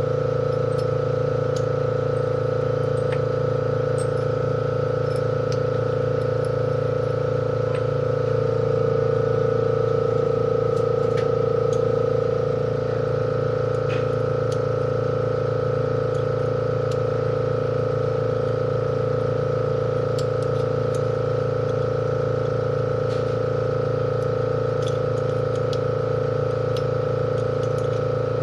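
Steady mechanical hum, a little louder from about eight to twelve seconds in, with scattered faint clicks.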